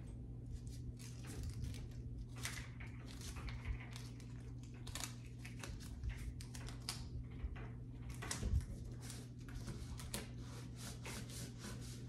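Tape being pulled and torn in short strips, with the plastic IV bag and its tubing crinkling as they are handled, in a series of irregular scratchy rustles. A low thump comes about eight and a half seconds in, over a low steady hum.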